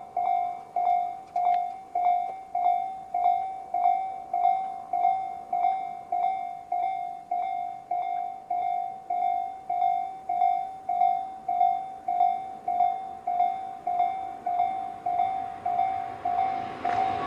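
Japanese railway level-crossing warning alarm of the Tobu 'C' type in its slow-tempo version. Its electronic bell-like tone rings over and over at an even pace, a little under two strikes a second, each one sharp and then fading. At the very end the rush of an approaching Tobu 100 series train begins to rise under it.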